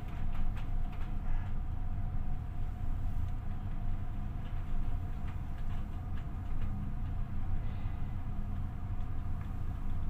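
Ship's engine running, a steady low drone with a constant hum, heard aboard the vessel, with scattered light clicks and knocks.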